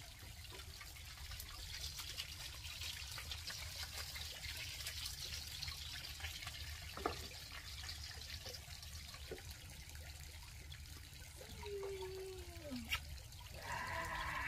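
Fish frying in hot oil in a pan lined with banana leaf: a steady sizzle, with a couple of sharp metal clinks from the pan lid. Near the end a short falling whine and a brief pitched sound.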